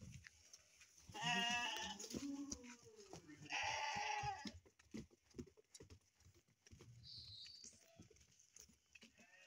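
A young calf bawling twice, short bleat-like calls about a second in and again about three and a half seconds in.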